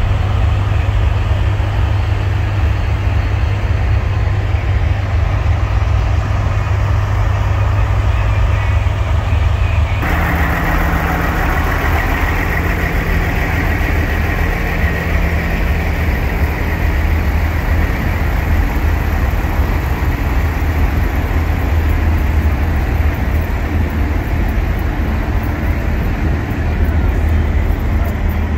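Big-rig diesel engines running with a steady low rumble. The sound changes abruptly about ten seconds in, with more hiss in the upper range.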